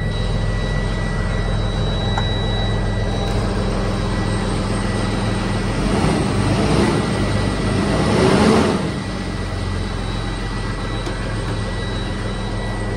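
Truck engine running at idle, heard from inside the cab. About six seconds in it is revved, growing louder for about three seconds before dropping back to a steady idle.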